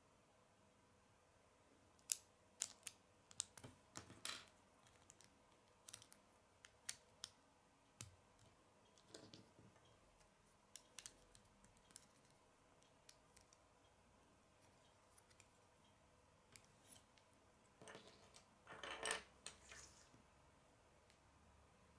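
Plastic LEGO bricks clicking and snapping as pieces are handled and pressed onto a small build, a scatter of sharp separate clicks. Near the end comes a longer rattle of plastic pieces.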